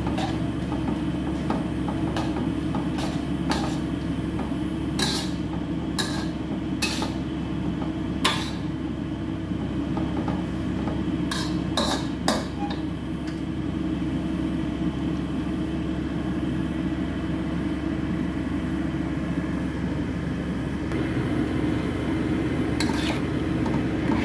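Metal spatula clanking and scraping against a wok as noodles are stir-fried, with sharp strikes scattered through the first half and again near the end, over a steady low rumble.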